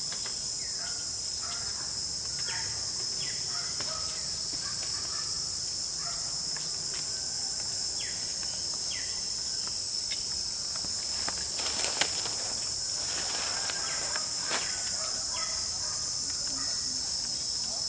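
Steady high-pitched insect buzzing, with a few short chirps scattered through it and a sharp tap about twelve seconds in.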